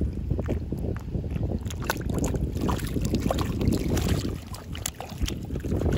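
Sneakers splashing in shallow water with each wading step, with wind rumbling on the microphone.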